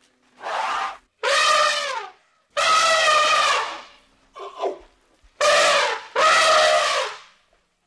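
An animal giving a series of loud, harsh, pitched calls, six in all, each about a second long and falling slightly in pitch at its end, with short gaps between; the fourth is shorter and fainter.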